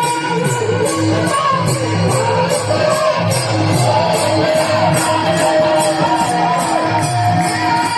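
Devotional music with pakhawaj drumming: deep, steady, rhythmic drum strokes under a wavering melody line, with a bright high tapping keeping time on each beat.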